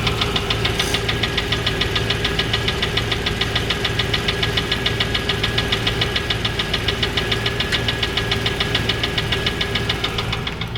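Land Rover Discovery II 3.9 V8 idling with a rapid, even knock, about six a second, heard from underneath the engine, where it is louder. A local mechanic takes it for a failed big-end bearing; the owner suspects the valve gear (rockers or lifters).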